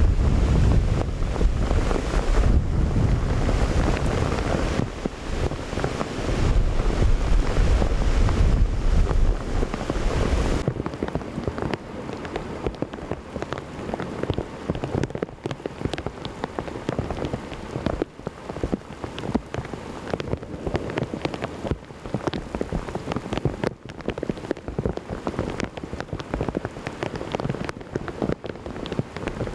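Heavy rain during a severe thunderstorm, with a loud low rumble under it for the first ten seconds or so that cuts off suddenly. After that, steady rain with many sharp drips spattering on hard surfaces.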